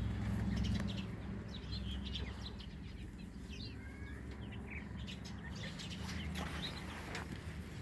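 Chickens giving short, scattered chirps and peeps over a low steady rumble.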